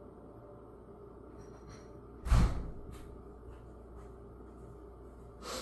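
A heavy thump a little over two seconds in, followed by a few light clicks and knocks, over a steady low hum.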